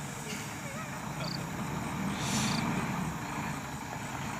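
Heavy diesel truck engines running at idle, a steady low rumble, with a short hiss and a brief rise in the rumble about two seconds in.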